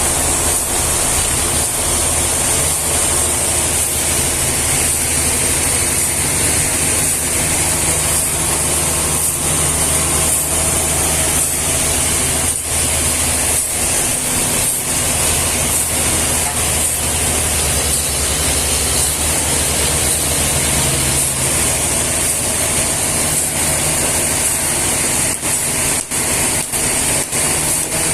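Sawmill machinery running steadily: a constant low engine hum under a loud, even high hiss, with a few brief dips near the end.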